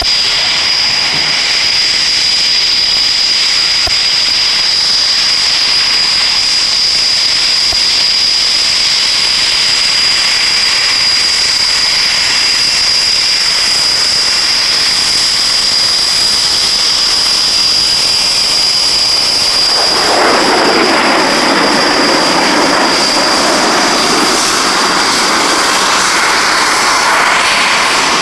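Panavia Tornado GR1's twin RB199 turbofan engines running as the jet taxis, a steady high-pitched whine over engine noise. About twenty seconds in, the engine noise grows louder.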